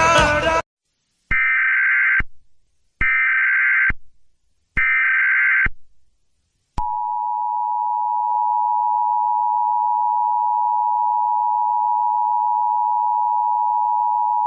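Music cuts off just after the start. Then come three short Emergency Alert System (SAME) header data bursts, each about a second long, with short silent gaps between. About seven seconds in, the steady two-tone EAS attention signal begins and holds on past the end.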